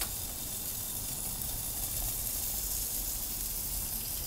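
Burger patties sizzling steadily on a cast-iron griddle plate inside an Ooni Koda 16 gas pizza oven, over the rush of its burner flame, which has just been turned back up.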